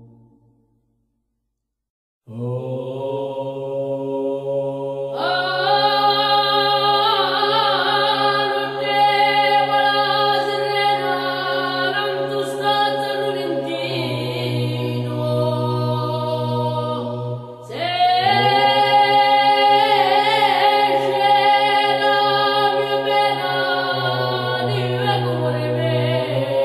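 Unaccompanied male voices singing Corsican-style polyphony: after a moment of silence a low held part enters about two seconds in, and higher voices join a few seconds later with wavering ornamented lines. The singing breaks off briefly about two thirds of the way through and starts again.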